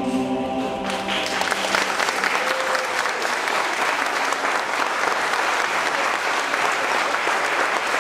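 A final held note ends and audience applause breaks out about a second in, then continues as steady clapping.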